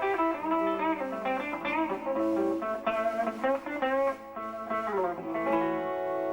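Electric guitar playing a lead line with string bends, ending on a long held note.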